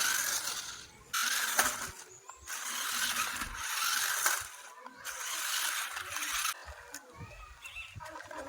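Small electric gear motors of a remote-control model whirring in four short runs, each starting and stopping abruptly.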